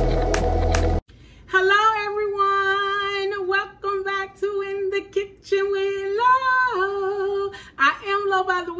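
Intro music with a beat cuts off abruptly about a second in. A woman then sings a short tune unaccompanied, holding long steady notes with brief breaks.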